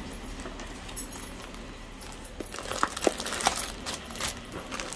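Cardboard box flaps being pulled open and clear plastic packets being handled, giving light rustling and a run of short crackles and clicks in the second half.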